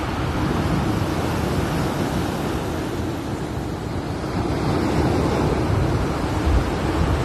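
Rough sea surf breaking and washing up a pebble beach in a continuous rush of foam, with a wave crashing in a low thump about six and a half seconds in. Wind buffets the microphone.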